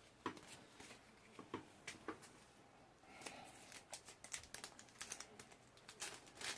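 Faint rustling and light clicks of Pokémon trading cards being handled and sorted by hand, sparse at first and busier about halfway through.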